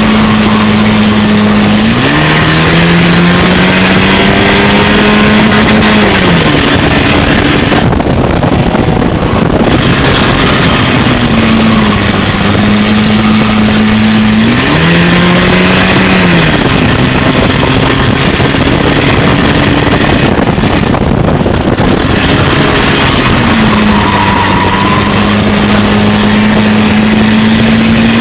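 Stinger dirt-track race car's engine running hard, heard from inside the cockpit over heavy road and wind noise. Its pitch climbs sharply about two seconds in and again about halfway through, then drops back after each, rising and falling with the laps of the oval.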